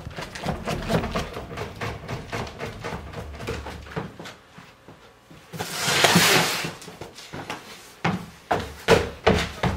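Footsteps on a wooden staircase: a run of quick knocking steps going down, a brief rustling noise about six seconds in, then steady steps climbing with a cardboard shelf box.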